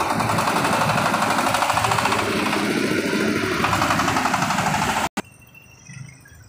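Engine of a self-propelled power thresher (corn, soybean and rice thresher built on a vehicle chassis) running with a fast, even clatter as the machine drives past close by. The sound cuts off suddenly about five seconds in, leaving only faint background.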